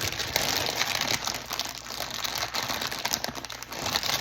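Foil Pop-Tarts wrapper crinkling and crackling, handled and pulled at irregularly as it is worked open by hand.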